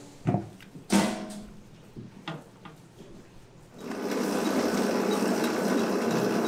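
A few knocks and clangs against a steel mixing bowl, one ringing briefly. About four seconds in, a factory machine starts running with a steady hum.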